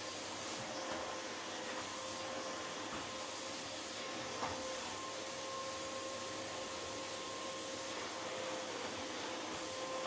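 Kiwi 4105 stick vacuum cleaner running steadily as it is pushed over a rug: an even airflow hiss with a constant motor whine, and one faint click about four seconds in.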